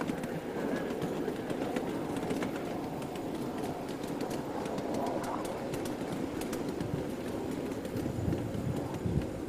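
Ride-on miniature railway train rolling along its track, a steady running rumble with scattered small clicks from the wheels on the rails.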